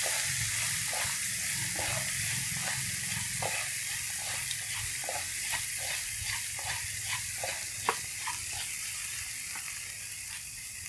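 Diced vegetables sizzling in hot oil in a pan as they are stir-fried with wooden chopsticks, with frequent light taps and scrapes of the chopsticks on the pan and one sharper knock about eight seconds in.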